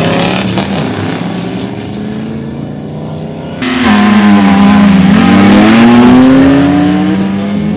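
Toyota Land Cruiser pickup engines revving hard. After a sudden cut about three and a half seconds in, one launches and accelerates away, loud, its pitch dipping and then climbing.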